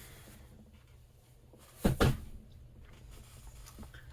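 Two quick knocks close together about two seconds in, from a cardboard box being handled and set down, with faint rustling of packaging around them.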